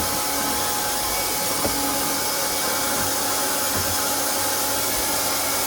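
Hot-air plastic welding gun running, its blower giving a steady hiss.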